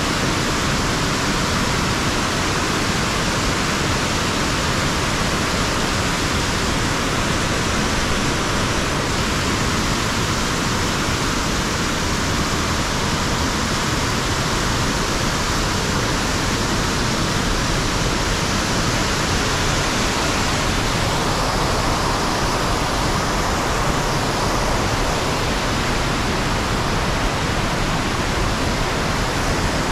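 Waterfall rushing steadily: an even, unbroken hiss of falling water with no changes or breaks.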